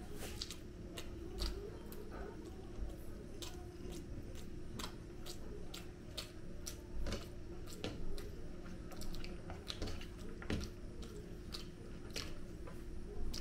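A person eating chicken biryani and a boiled egg by hand: irregular wet chewing and mouth clicks, with fingers working the rice on the plate. A steady low hum runs underneath.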